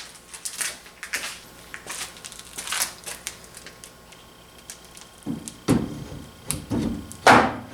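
Light metal clicks and taps of a pivot pin being set into a milling machine table and its set screw snugged down, then heavier metal knocks and scraping over the last couple of seconds.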